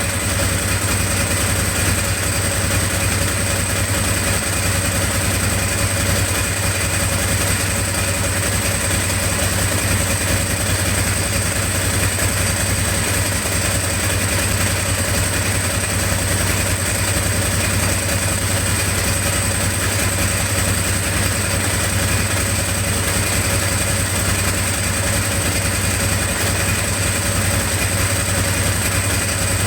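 Ducati 749 L-twin engine idling steadily, with a steady high-pitched whine over it.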